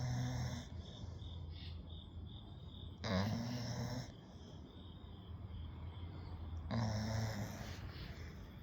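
Pit bull-type puppy snoring in its sleep, three snores about three and a half seconds apart.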